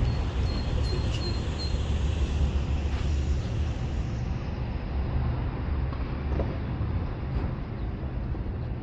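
Steady road traffic: a continuous low rumble of passing cars under a softer hiss.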